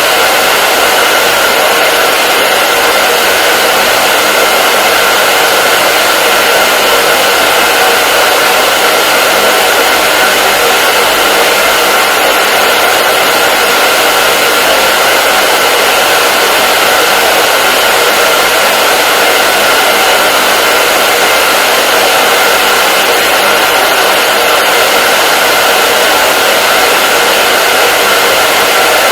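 Hair dryer running continuously: a loud, steady hiss of rushing air with a constant whine from the motor and fan.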